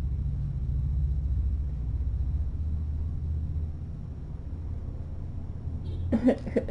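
A steady low rumble that weakens about halfway through. A woman starts speaking near the end.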